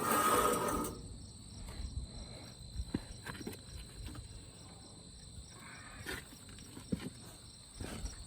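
A few faint scattered metal clicks and knocks as a 9/16 wrench is worked on the sawmill's blade-guide adjustment bolts, over a steady high insect drone.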